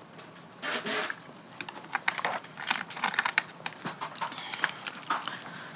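A quick, irregular run of light clicks and taps, with a short rustling burst about a second in.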